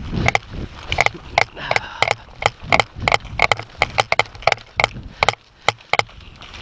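Airsoft guns firing single shots: a long run of sharp cracks at an uneven pace of about three a second, with a short pause near the end.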